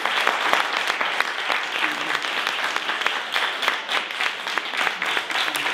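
Audience applauding: many hands clapping in a dense, steady patter at the end of a talk.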